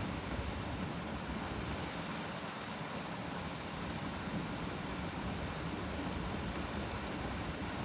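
Steady wash of wind and water noise on the open shore, even throughout, with no distinct gull calls standing out.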